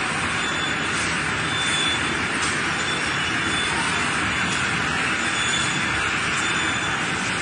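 Steady, loud rushing noise of a stainless-steel spiral boiling line in operation, with a faint high-pitched whine on and off.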